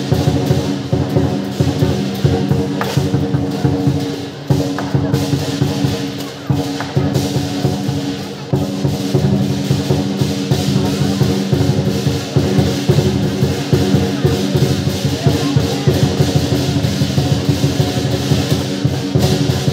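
Lion dance percussion: a large Chinese lion-dance drum beaten in fast, dense rolls, with clashing cymbals and a gong ringing over it.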